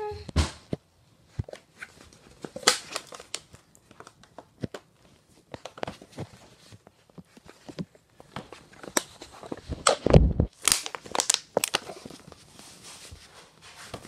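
Plastic water bottle crinkling and crackling as a baby grips and shakes it, in irregular squeezes and knocks, with the loudest burst of crackles and a thump about ten to eleven seconds in.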